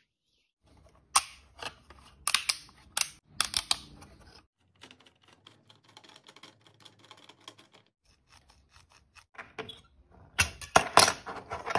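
Hard plastic clicks and clacks of 3D-printed print-in-place toys being handled: a run of sharp separate clacks in the first few seconds from the flip-text pieces, fainter fine rapid ticking in the middle as a printed platform jack's screw is turned, then a loud cluster of clicks near the end as an articulated flexi dinosaur's joints are worked.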